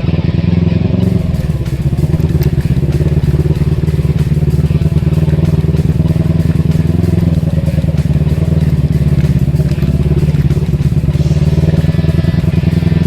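Kawasaki Eliminator motorcycle engine running steadily with an even, fast pulse, its carburettors freshly cleaned after the restoration got it running.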